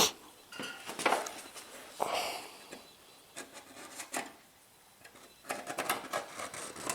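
Scattered knocks, clinks and rubbing from tools and metal being handled and set down on a workbench, with a quieter spell about two-thirds of the way through.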